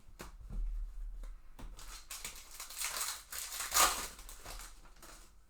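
Foil trading-card pack wrapper being torn open and crinkled by hand, a rustling, crackling sound that is loudest near the end.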